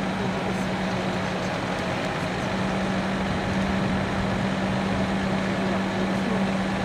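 Diesel engine of a lorry-mounted Palfinger loader crane running steadily, keeping the crane powered as it holds the pool; a constant low hum with no change in pitch.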